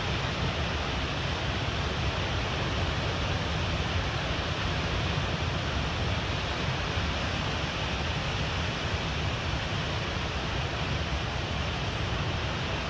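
Steady rush of ocean surf breaking on the reef and shore, mixed with wind.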